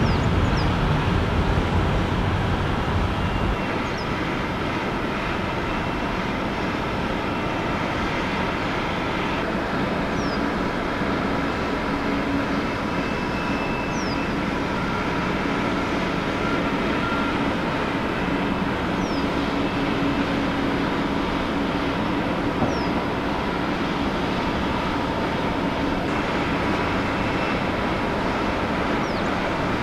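Jet airliner engine noise: a steady rush with a faint hum through it. A deeper low rumble drops away about three and a half seconds in, and short high chirps come every few seconds.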